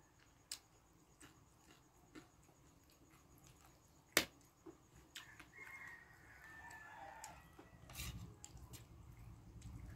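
Spoon and fork clinking against a ceramic plate, a scatter of sharp clicks with the loudest about four seconds in. From about five seconds a rooster crows faintly for about two seconds, and a low rumble builds near the end.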